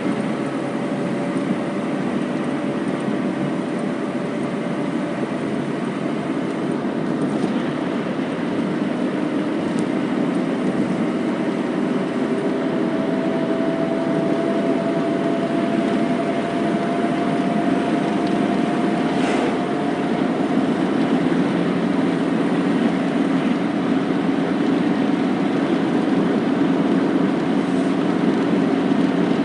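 Car driving on the road, heard from inside the cabin: a steady mix of engine and tyre noise, with the engine's tone rising gradually for several seconds midway as the car picks up speed.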